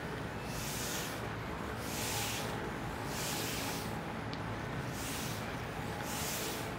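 Footsteps of a person walking on a paved path: a soft swishing scuff about once a second, over a steady low outdoor rumble.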